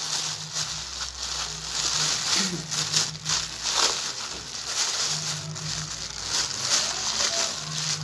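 Small plastic bag crinkling and rustling as it is handled and opened to take out clay, a run of irregular crackles.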